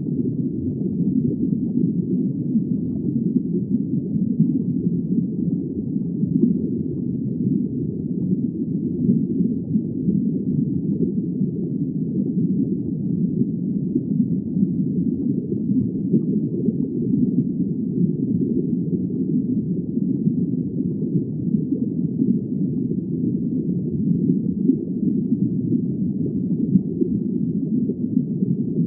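Steady, muffled low rumble of underwater noise with no distinct tones or events, as picked up by an underwater drone.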